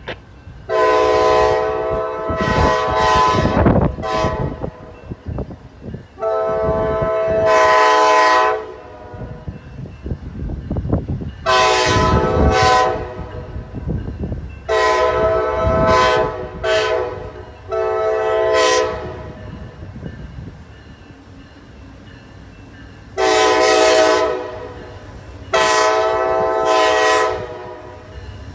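Amtrak passenger locomotive horn sounding a long, irregular series of about a dozen long and short blasts, as a warning to railroad maintenance workers near the diamond crossing. The train's low rumble runs underneath.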